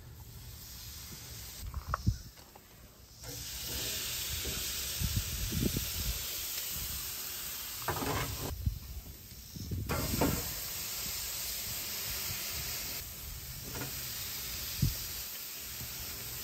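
Steady hiss from the hot smoker cabinet, broken by a few dull knocks and clanks as whole seasoned chickens are set onto its metal rack shelves.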